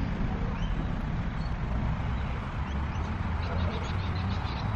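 Wind buffeting the microphone, a steady uneven low rumble, with a few faint bird chirps above it.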